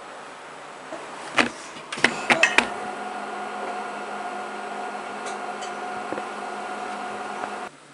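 A few clicks and knocks, then a microwave oven running at 500 W with a steady electrical hum that stops abruptly near the end.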